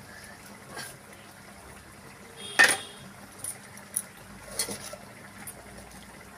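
Several metal clinks and taps of a utensil against an iron kadai as dried red chillies are dropped into hot oil, the loudest clink a little over two and a half seconds in, over a low steady background hiss.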